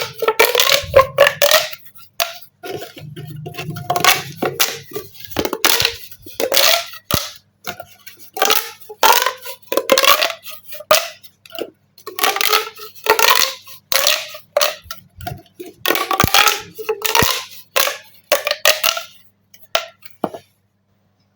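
Plastic pop tubes being stretched and squashed, giving a run of rapid popping crackles in short bursts, some of which slide down in pitch. The popping stops about a second before the end.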